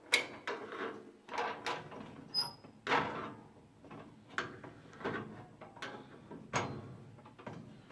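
A wrench turning a 7/16 nylon lock nut onto a cam lock in a sheet-metal gun cabinet, with irregular metallic clicks, knocks and scrapes. There is a brief squeak about two and a half seconds in.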